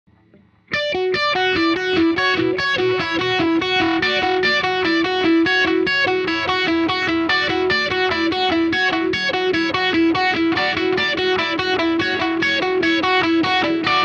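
Electric guitar played through a DOD Phasor 201 phaser pedal switched on, a quick run of picked notes over one repeating note, starting abruptly under a second in.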